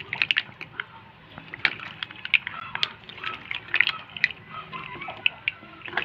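Seafood boil of shrimp, mussels, squid and corn being stirred with a spatula in a metal wok: irregular clicks and clacks of shells against the pan and utensil, with the sauce sloshing.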